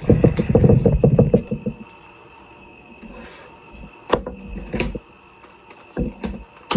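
MRE ration pouches being handled and opened: thick plastic packaging crinkling and rustling loudly for about the first two seconds, then a few separate knocks and rustles as items are set on the table.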